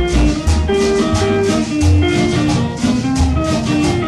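Cumbia music in an instrumental passage between sung lines: a bass line, a melody in held notes and steady percussion.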